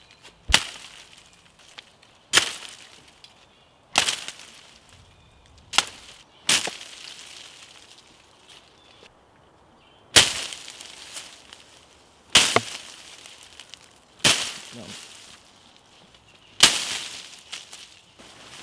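Sharp cracks of twigs and branches in undergrowth, about nine of them, one every two seconds or so. Each trails off in a brief rustle.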